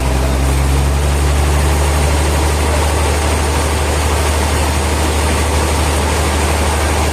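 Heavy sawmill machinery running steadily: a loud, even low hum under a wash of noise.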